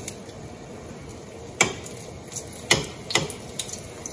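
Metal kitchen tongs clicking against the frying pan about five times, at uneven intervals, over a faint steady sizzle of an egg-battered chile relleno frying in oil.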